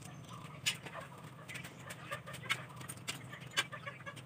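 Chicken feet simmering in adobo sauce in a pan: scattered pops and crackles of the bubbling liquid over a steady low hum.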